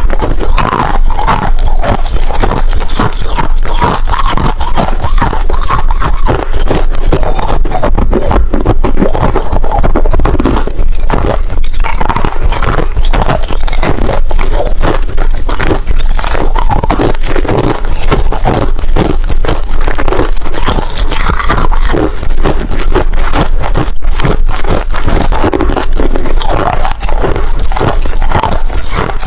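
Ice being chewed close to the microphone: loud, continuous crackling crunches and scrapes.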